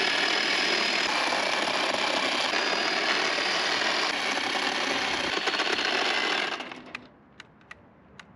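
Battery-powered tire grooving tool running steadily as it cuts a groove into a tire's rubber tread. It dies away about six and a half seconds in as the battery goes flat, and a few light clicks follow.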